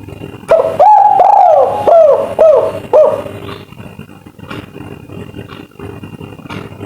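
Spotted dove (tekukur) cooing one 'kuk 3' phrase: a long first coo, then four or five shorter coos that each drop in pitch at the end. The phrase is over after about three seconds, leaving a background of noise and scattered clicks.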